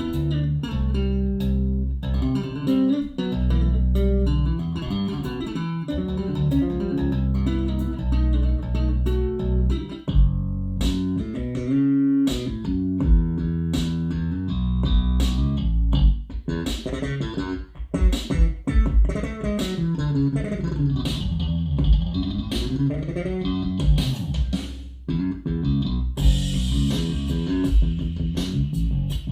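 Bass-heavy music with bass guitar and guitar, played back over a hi-fi system with a REL subwoofer and heard in the room. Deep bass runs throughout, with sharp drum-like hits from about ten seconds in and a brighter cymbal wash near the end.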